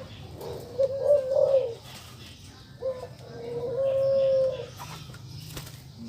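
Male ringneck dove (puter) giving its courtship coo: two coos, the first wavering and about a second long, the second a longer, steadier note of about a second and a half.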